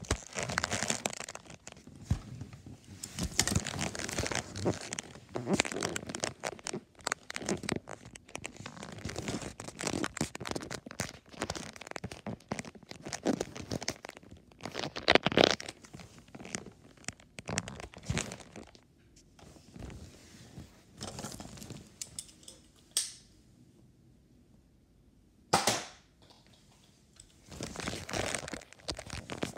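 Handling noise from a camera being moved about and rubbed against a leather couch and clothing: dense rustling, crinkling and scraping with many small knocks. Near the end it goes quieter, broken by two short sharp sounds a few seconds apart.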